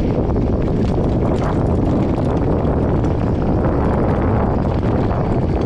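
Steady wind rush on a bike-mounted camera's microphone, mixed with the rumble of knobby mountain-bike tyres rolling over a rough, stony dirt road.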